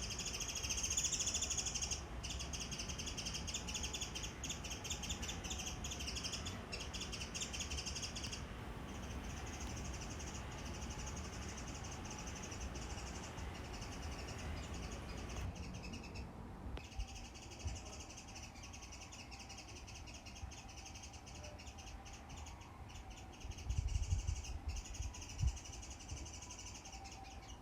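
Birds calling, over a steady high-pitched buzzing that breaks off about eight seconds in and returns some seven seconds later, with a low rumble underneath.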